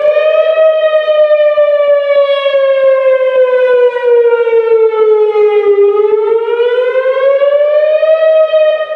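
Tsunami warning siren of Malaysia's tsunami early warning system (SAATNM) sounding a test. One slow, loud wail sinks gradually in pitch for about five seconds, then climbs back over the next two and holds.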